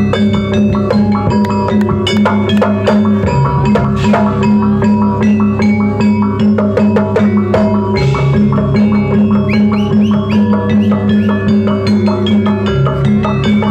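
Jaranan dance accompaniment music: fast struck-metal notes and drums over held low tones, a gamelan-style ensemble playing steadily, the held tones dropping out briefly a few times.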